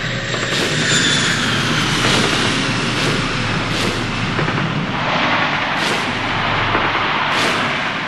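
Recorded battle sound effects: a steady roaring rumble of aircraft and explosions, with a high whistle falling in pitch in the first two seconds and four sharp gunshot cracks spaced a second or two apart.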